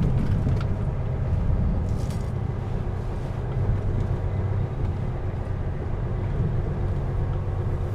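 Lorry's diesel engine running steadily at low speed, heard from inside the cab as a low rumble, with a brief hiss about two seconds in.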